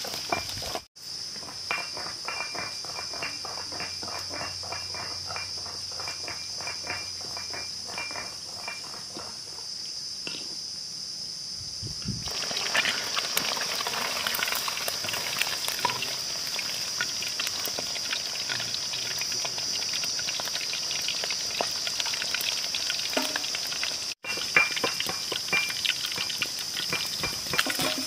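Catfish pieces sizzling and crackling as they deep-fry in hot oil in an iron kadai. The sound breaks off sharply twice, about a second in and again near the end.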